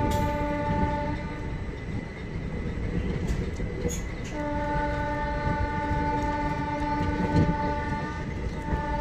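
Indian Railways locomotive horn sounding long steady blasts as the train pulls out of the station: one ends about a second in, another runs from about four and a half to eight seconds, and a short one comes near the end. Under it, the ICF coach rumbles and clacks over the rails.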